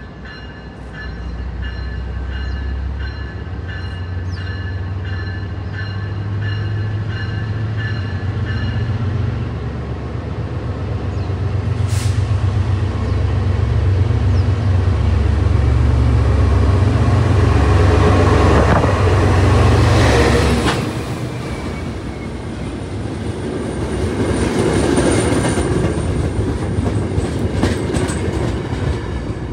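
An MBTA HSP46 diesel locomotive pulls a commuter train into the station. Its engine drone grows louder as it nears and passes, then drops off suddenly about two-thirds of the way through. After that, the bilevel coaches roll by with wheel and rail noise. For the first several seconds a bell rings in a steady rhythm.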